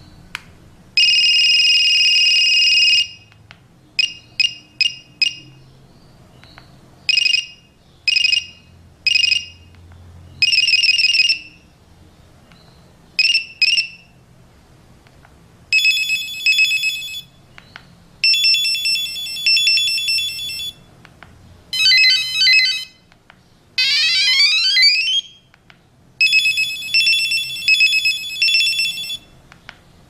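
Alcatel OT-S121 mobile phone previewing its ringtones one after another through its small speaker: a series of short electronic beeping tunes, each lasting a second or a few, with brief pauses between them as the next one is picked. About two thirds of the way in, one tune sweeps up and down in pitch.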